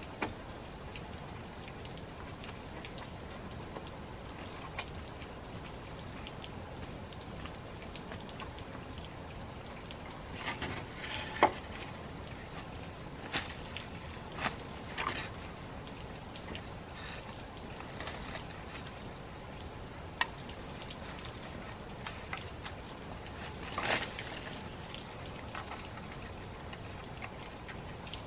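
A steady, high-pitched insect trill over an even background hiss, with scattered knocks and taps, the loudest about eleven seconds in and another near twenty-four seconds.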